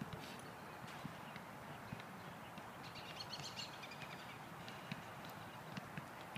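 Dogs' paws scuffling and padding on wood-chip ground as the dogs wrestle, heard as scattered light clicks and scuffs over a steady outdoor hiss. A brief high chirping comes in about halfway through.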